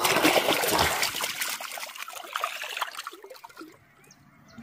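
Water splashing and trickling as a catfish is let back into the river. The splash is loud at first and dies away over about three seconds.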